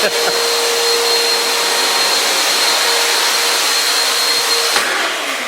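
Dirt Devil upright vacuum cleaner motor running at full speed: a loud, steady high whine over rushing air. The whine stops near the end.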